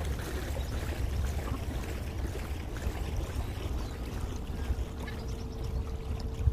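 Wind buffeting the microphone with a steady low rumble. Faint footsteps crunching on stones fade off in the first couple of seconds, and a faint steady hum comes in near the end.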